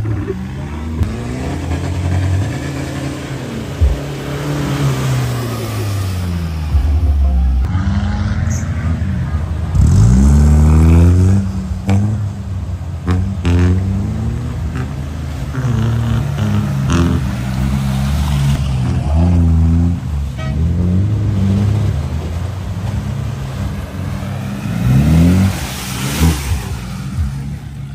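4x4 off-road vehicle engine revving up and falling back again and again, with a few sharp knocks along the way.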